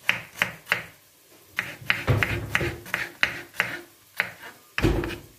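Kitchen knife chopping onions on a wooden cutting board: about a dozen sharp taps at an uneven pace, with a heavier thump near the end.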